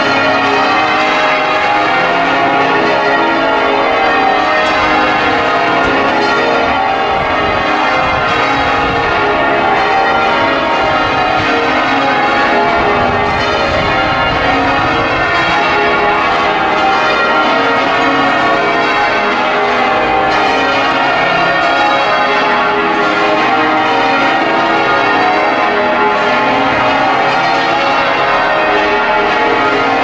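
Change ringing on Liverpool Cathedral's ring of thirteen bells, the heaviest ring in the world (tenor 82 cwt in A♭): an unbroken run of overlapping bell strokes at many pitches.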